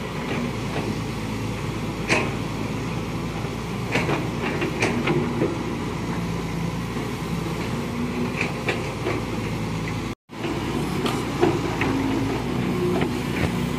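Caterpillar 320C hydraulic excavators at work: a steady diesel engine din whose hum shifts up and down in short steps, with sharp clanks every second or two. The sound cuts out for a moment about ten seconds in.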